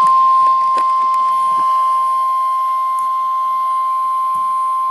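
Emergency alert attention tone of the kind NOAA Weather Radio sends (a single 1050 Hz tone): one loud, steady, unwavering pitch that starts abruptly. It announces an alert, here a severe thunderstorm watch, and sits over faint radio hiss with scattered crackles.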